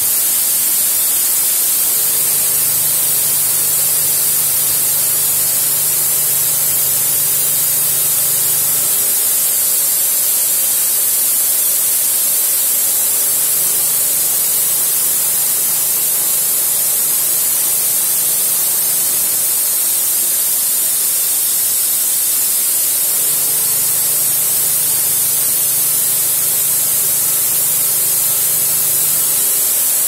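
Steady loud hiss of a compressed-air blast on a CNC milling machine, blowing through the nozzles onto the cutter as it mills a steel vise jaw. A low machine hum rises under the hiss three times, for several seconds each.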